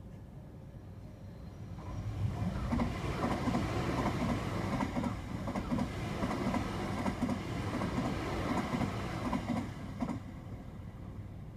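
Electric express train of Tokyu Den-en-toshi Line stock passing at speed, its wheels clattering over the rail joints in a running rhythm. The noise swells about two seconds in and drops away sharply about ten seconds in as the last car clears.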